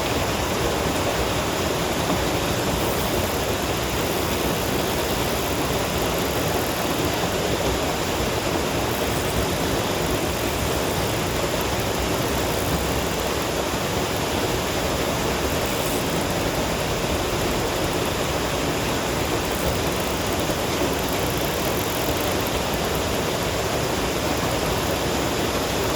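Steady rush of water pouring over a creek spillway, an even, unbroken noise.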